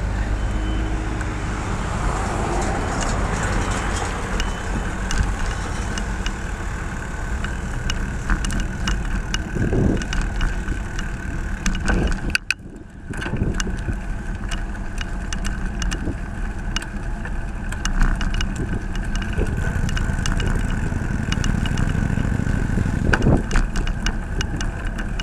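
Road traffic noise with cars passing, heard from a bicycle riding along a highway: a steady low rumble that drops away sharply for a moment about halfway through.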